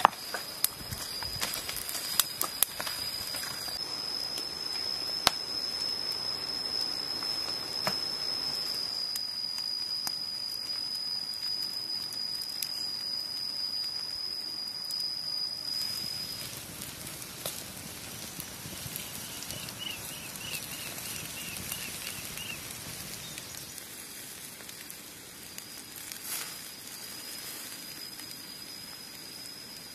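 Beef ribs grilling over an open wood fire: a steady hissing sizzle with sharp crackles and pops in the first few seconds. A thin, steady high-pitched whine runs through the first half and comes back near the end.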